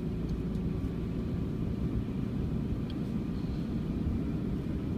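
Steady low rumble of a Renault Master van's engine and tyres on the road, heard from inside the cab while driving.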